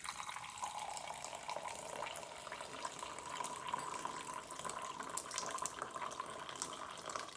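Water running in a steady stream and splashing, with a constant pouring tone.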